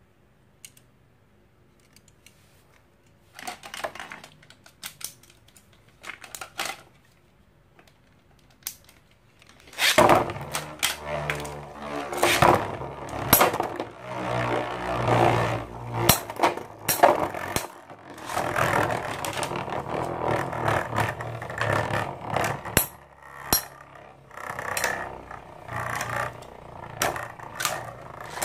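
Two Infinity Nado metal battle tops launched into a clear plastic stadium about ten seconds in, then whirring, scraping and clattering against each other and the stadium floor as they battle. Before the launch, only a few faint clicks of the tops being handled.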